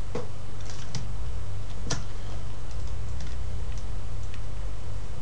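Scattered clicks of a computer keyboard and mouse being operated, about seven irregular taps with the sharpest about two seconds in, over a steady low electrical hum.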